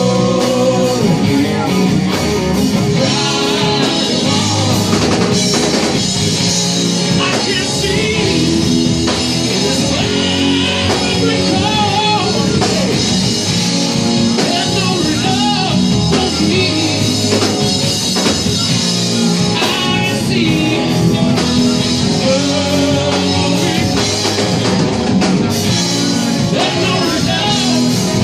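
Live rock band playing electric guitars, bass guitar and a drum kit, with a sung lead vocal over the top. The music runs on at an even level throughout.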